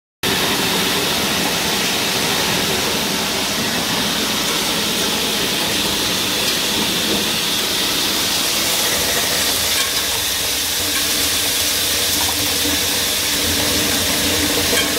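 Kreuzmayr KEP 650 fruit passing (de-stoning) machine running, sieving raspberries and throwing out the seeds: a steady, even mechanical running noise with a hiss to it.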